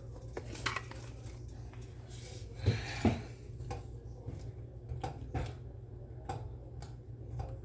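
Scattered clinks and knocks of kitchen utensils and dishes being handled, two louder knocks about three seconds in, over a steady low hum.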